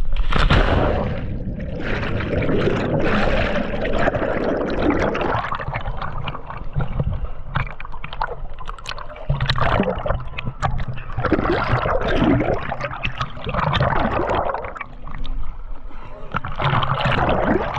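River water splashing and gurgling right against the microphone as the camera rides at the surface, in uneven surges.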